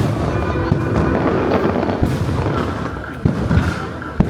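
Fireworks bursting in a rapid run of pops and bangs over music, with a couple of sharper bangs near the end.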